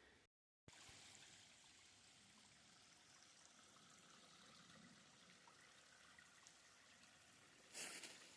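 Faint, steady rush of flowing creek water, with a short louder burst of noise near the end.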